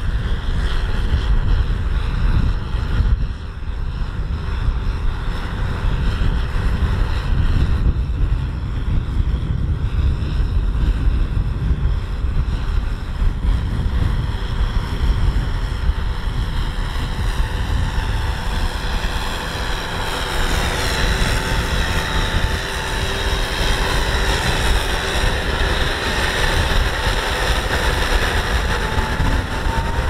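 Rice combine harvester running steadily at work, a loud engine drone with a deep rumble; a steady machine whine joins about two-thirds of the way through.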